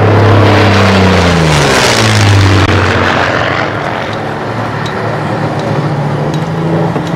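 Yak-3 fighter's V12 piston engine and propeller passing close at speed: a loud drone whose pitch drops over about a second and a half as it goes by, then settles into a quieter steady drone as it moves away.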